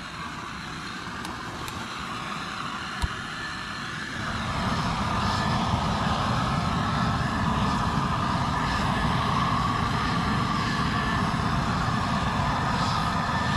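Propane weed-burner torch burning with a steady rushing noise, turned up louder about four seconds in, as it singes squirrel carcasses on a fire-pit grate.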